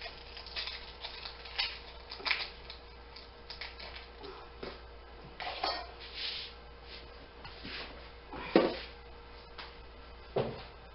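Kitchen handling sounds: dry onion skin crackling as it is peeled off by hand, with scattered light taps, then a sharper knock most of the way through and another near the end as things are set down on the counter.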